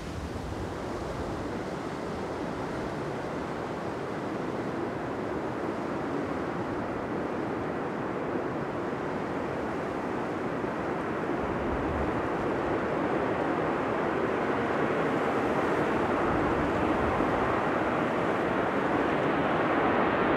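Boeing 737-800's twin CFM56 jet engines running as the airliner rolls along the runway after landing: a steady rushing jet noise that grows gradually louder as it approaches.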